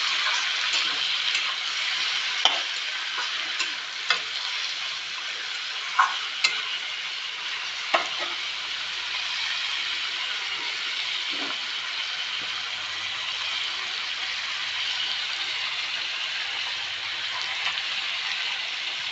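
Chicken frying in a pan, a steady sizzle, with a utensil clicking against the pan now and then as it is stirred.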